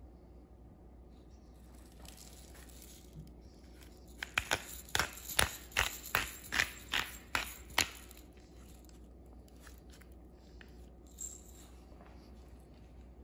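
Seasoning grinder bottle being twisted by hand, about ten crunching grinding strokes at roughly three a second, lasting about three and a half seconds, as steak seasoning is ground onto a raw steak.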